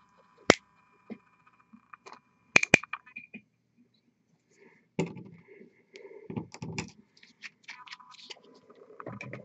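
Clicks, light knocks and scrapes of small objects being handled on a painting desk: one sharp click about half a second in, a quick cluster of louder clicks a few seconds in, then scattered softer knocks and scrapes.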